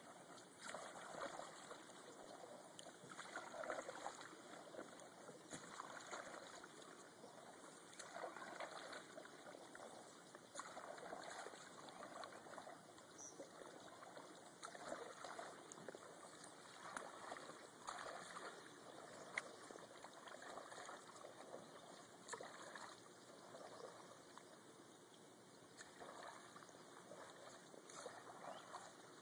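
Faint splashing and dripping of kayak paddle strokes in calm water, a soft swell every second or two.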